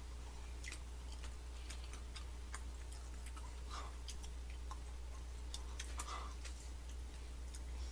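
Macarons being chewed: soft, irregular mouth clicks and smacks, over a steady low hum.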